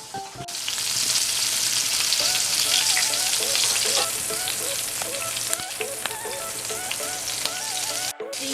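Chicken frying in hot oil in a pan: a dense, steady sizzle with scattered crackling pops, getting louder about half a second in.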